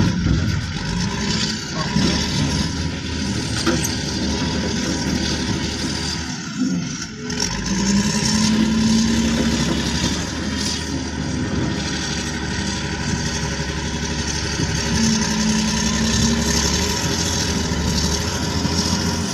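Wheel loader's diesel engine working under load as it drags a heavy steel pile on a line. The engine rises to a higher, steady note twice, about 8 seconds in and again about 15 seconds in.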